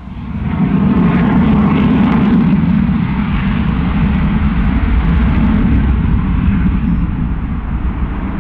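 Eurofighter Typhoon's twin EJ200 turbofan engines, a loud, steady jet roar as the fighter flies its display. The noise swells sharply in the first half second, then holds.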